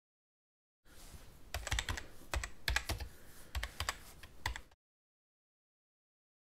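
Keyboard typing sound effect: irregular, quick key clicks over a faint hiss, starting about a second in and stopping suddenly after about four seconds.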